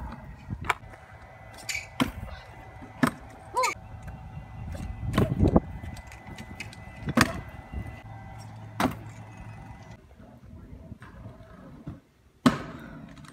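Stunt scooter rolling on concrete, its wheels rumbling, with a series of sharp clacks as the deck and wheels slap down from tricks; the loudest landing comes about five seconds in.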